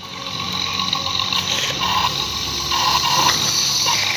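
Small electric motor and plastic gearbox of a wired remote-control toy excavator whirring as its arm and bucket move, with a few brief swells in the sound.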